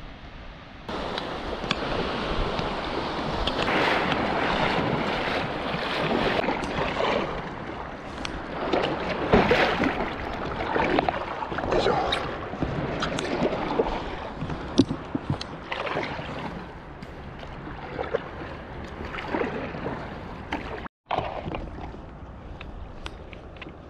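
Water splashing and sloshing around a stand-up paddleboard, with irregular splashes and wind on the microphone.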